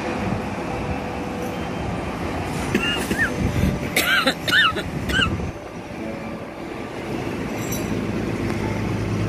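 Steady rumble of expressway traffic heard from high above, with a few short high chirps around the middle.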